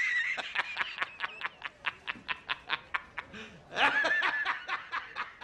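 A man laughing hard: a high, wheezing squeal, then rapid breathy bursts of laughter at about six a second, with a second high squeal about four seconds in.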